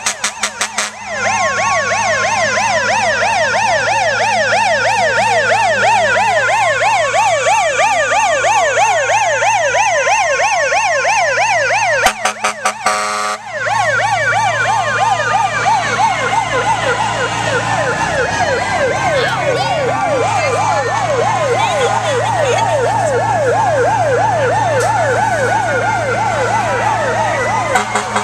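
Several emergency-vehicle sirens sounding at once in a parade: a fast yelp over slower rising-and-falling wails, with a steady engine hum beneath. A rapid stuttering pulse breaks in just after the start and again about twelve seconds in.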